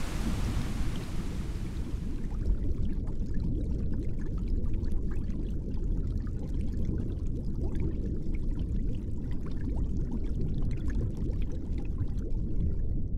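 Rushing water: a full hiss of falling water fades out over the first two seconds, leaving a muffled low churning as heard from underwater, with faint bubble pops.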